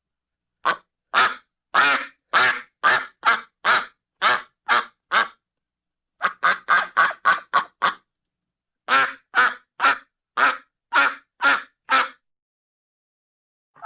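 A duck quacking in three quick runs of short quacks, each run of seven to nine calls, with brief silent pauses between the runs.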